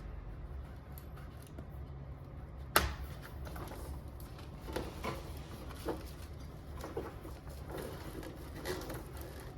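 A sharp click about three seconds in, then scattered light knocks and clatter of objects being handled, over a low steady hum.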